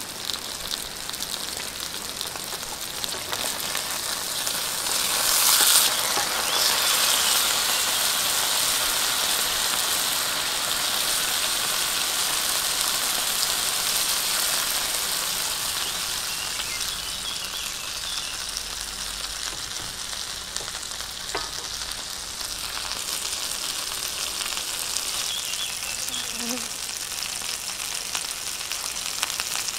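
Wagyu ribeye steak and vegetables sizzling in fat in a hot frying pan. The sizzle swells sharply about five seconds in, then settles to a steady fry.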